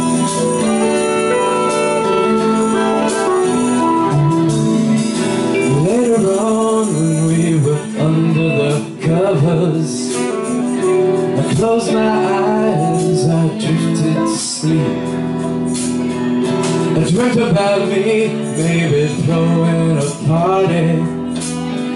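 Live band playing a song, with held chords on keyboard and guitar, and a voice singing over the band from about six seconds in.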